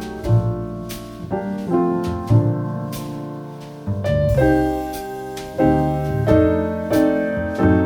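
Background music: a soft piano melody with chords, notes struck and left to ring.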